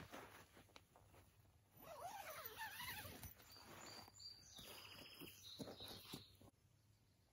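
Faint wild calls over quiet woodland. A wavering call rises and falls about two seconds in, then a high thin note and a rapid trill come a couple of seconds later, with a few soft knocks in between.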